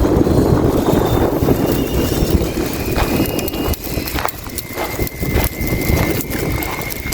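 Wind buffeting the microphone: a loud, rough rumble that eases after about three seconds, with a few scattered sharp clicks or knocks over it.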